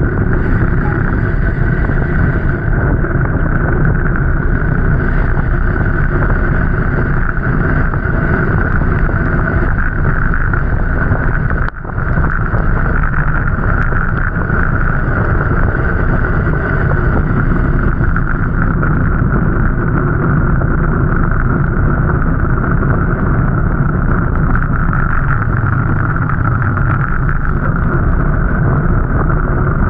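A moving vehicle running steadily, with wind noise on the microphone; the sound dips briefly about twelve seconds in.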